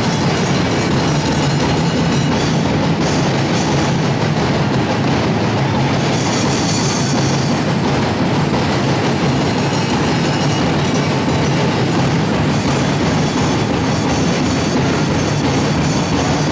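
Loud live percussion band of Ati-Atihan street-dance drums beating a fast, unbroken rhythm.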